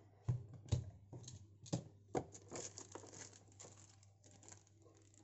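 Clear plastic packaging crinkling and rustling as it is handled and pulled out of a box. A few separate sharp crackles come first, then denser crackling until it tails off about four seconds in.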